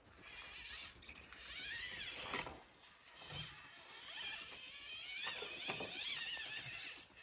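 Small electric motor and drivetrain gears of a 1/24-scale SCX24 RC crawler whining in short stretches, the pitch rising and falling with the throttle, with a few faint ticks.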